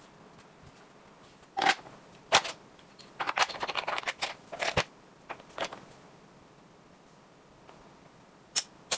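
Small square tiles clicking against each other and the tray as they are slid and pressed into place in a grid: a few single clicks, then a quick run of clicks from about three to five seconds in, and two more clicks near the end.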